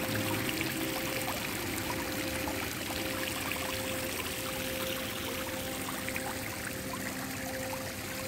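Water flowing steadily down a stepped channel, a constant pouring rush, with a faint steady tone underneath.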